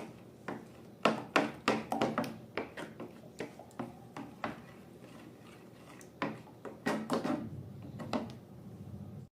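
Slime being handled and mixed by hand: an irregular run of short sticky clicks and squishy pops, some bunched several to a second.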